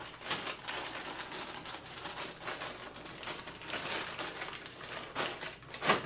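Plastic fluorescent tube holders clicking and rattling against their sheet-metal mounting bar as they are handled and slid off by hand, a run of irregular small clicks with one louder click near the end.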